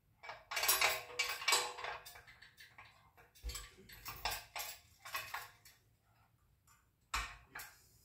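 Steel parts of a B&W Companion fifth-wheel hitch clinking and scraping as they are handled and fitted by hand, busiest in the first couple of seconds, with a dull knock about halfway and another near the end.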